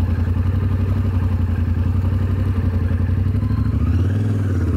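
Yamaha Ténéré 700's parallel-twin engine running steadily while riding, heard from the rider's own bike; the engine note dips briefly about four seconds in, then picks up again.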